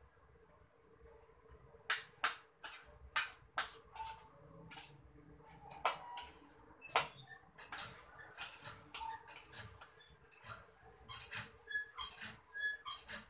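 Knife clicking and tapping irregularly against a bowl and board as cucumber is sliced by hand over a plastic bowl. Near the end an animal gives short high-pitched squeaks, about two a second.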